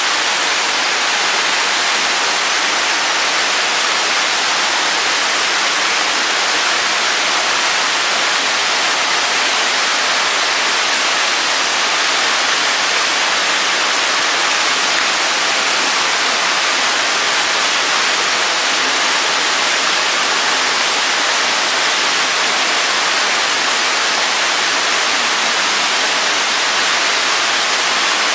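Steady rush of moving water in a koi tank, even and unbroken.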